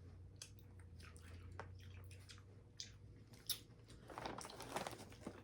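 Faint chewing and small mouth clicks from someone eating a piece of cotton candy, with a denser crackle setting in about four seconds in.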